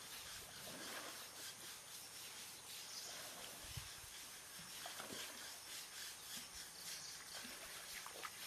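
Faint rasping scrubbing strokes on a bathing Asian elephant's wet hide, coming in irregular short strokes.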